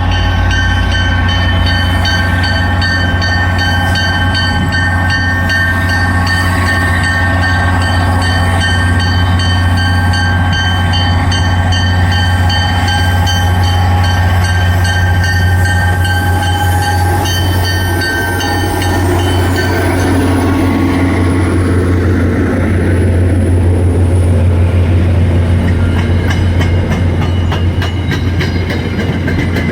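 MBTA commuter train's diesel locomotive running at the platform: a steady deep hum with high whining tones. About twenty seconds in, the whine fades and a rougher rumble rises as the train starts to pull out.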